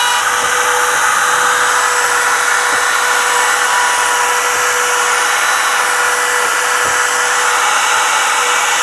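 Cordless trim router in a plunge base running at full speed while routing a hinge recess into a timber door edge along a hinge jig. A steady high whine over the noise of the bit cutting wood.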